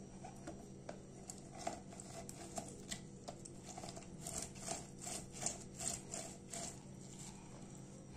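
Lemon halves being twisted and pressed by hand on a plastic citrus reamer over a glass jug: a run of short, irregular strokes, coming thickest from about halfway through.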